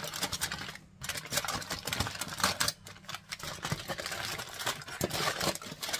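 Aluminium foil crinkling and crackling as hands fold and crimp it closed around a food packet, in irregular crackles with two short pauses, about a second in and about three seconds in.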